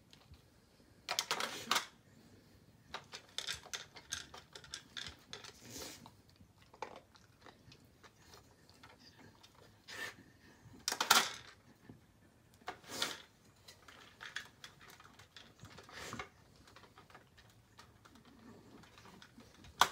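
Plastic dog puzzle feeder clicking and clattering as a beagle noses its yellow lids and pieces around to find treats, in irregular bursts with quiet gaps between them.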